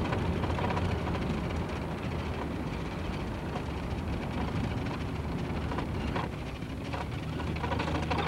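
Steady engine and road noise heard inside a moving car: a constant low drone with tyre rumble.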